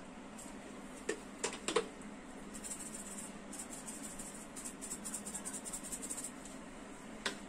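Dried pizza seasoning and chili flakes shaken out of a small container over pizzas: a few sharp taps about a second in, then a run of quick light rattling ticks for several seconds, and one more tap near the end.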